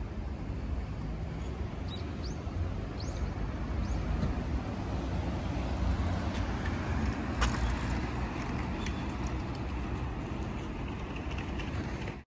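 Steady street traffic rumble from passing road vehicles, with a few short, faint high chirps about two to three seconds in.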